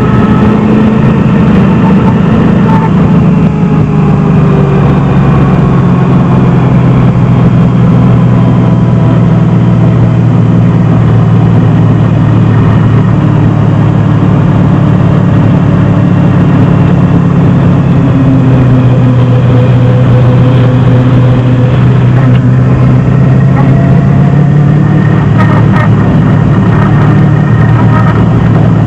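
Loud in-cabin sound of a 1971 Datsun 240Z's swapped-in 327 small-block Chevy V8 running steadily at track pace, its pitch drifting gently up and down with the throttle through the corners.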